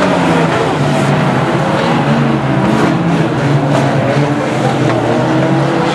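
Several banger racing cars' engines running together, revving up and down as they race round the track, with a few sharp knocks near the middle.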